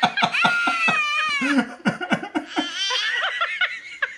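High-pitched human laughter and giggling.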